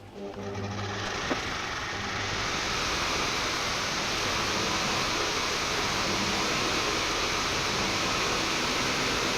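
Washing machine running with a steady rush of water, swelling over the first two seconds and then holding level, with one sharp click about a second in.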